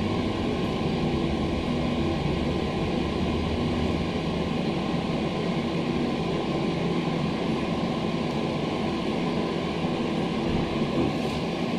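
Schindler hydraulic lift car rising between two floors, heard from inside the car: a steady hum with a rushing hiss while the hydraulic drive runs.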